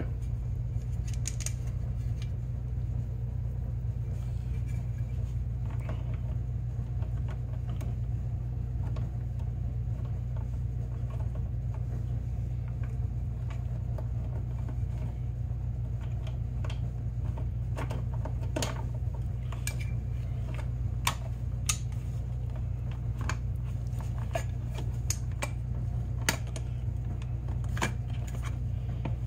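Scattered small metallic clicks and taps as a sheet-metal bracket and its bolts are handled and fitted by hand, a few sharper ones in the second half, over a steady low hum.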